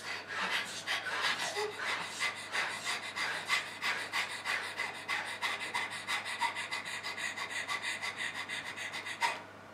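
People panting fast and rhythmically, about four or five breaths a second, stopping suddenly near the end.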